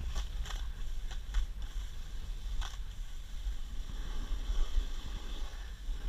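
Wind buffeting the microphone of a camera carried down a snow slope, a steady low rumble, with several short hissing scrapes of skis or board over wind-crusted snow in the first three seconds.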